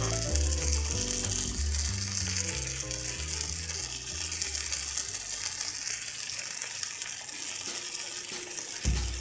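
Horumon (offal), onion, cabbage and kimchi sizzling steadily in a small cast-iron skillet, with background music fading out over the first half.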